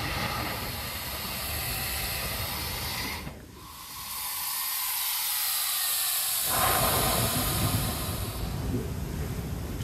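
Coastal lava rock 'breathing': air hissing out of and drawing back into a vent in the wet rock. It comes in slow breaths a few seconds long, with a short lull about three seconds in and a fuller rush from about six and a half seconds.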